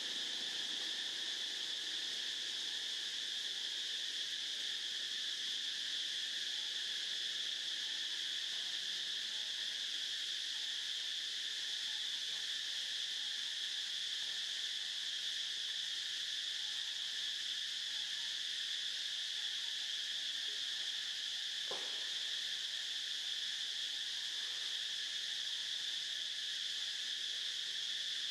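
Steady, high-pitched chorus of insects, an even drone without breaks. A single faint tap comes about three-quarters of the way through.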